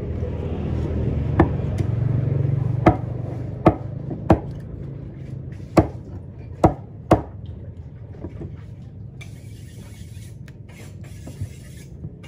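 Heavy knife chopping into a small tuna on a wooden block: about seven sharp chops, spaced unevenly, with none in the last five seconds. A low rumble runs underneath and fades about four seconds in.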